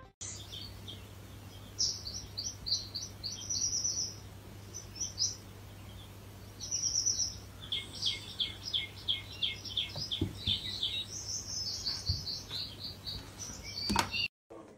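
Quick runs of short, high, bird-like chirps, several a second, coming in bursts over a faint steady low hum.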